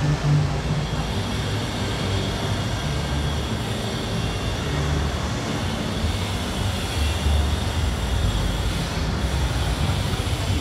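Steady street traffic noise: a low, uneven rumble with a haze of city background sound.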